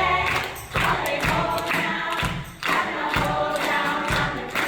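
A chorus of many voices singing a musical number, in phrases broken by short pauses about a second in and again past the middle.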